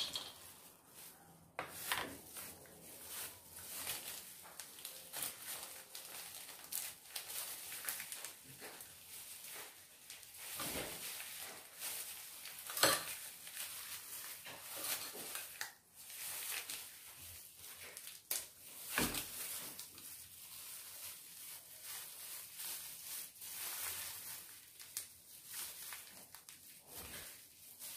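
Irregular clicks, rustles and light knocks of a salad being put together by hand in a large bowl: cashews tipped in from a small plastic dish, disposable plastic gloves crinkling, and utensils and containers set down on the board.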